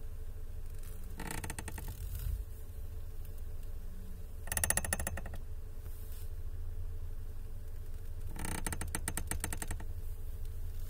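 Car steering wheel creaking as it is turned: three bursts of rapid, crackly creaking a few seconds apart, over a low steady hum.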